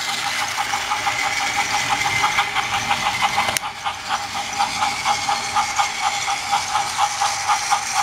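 Battery-powered Trackmaster toy train engine running on plastic track: a steady motor whine with a rapid, even ticking of about six ticks a second from its gears and wheels. One sharp click about three and a half seconds in.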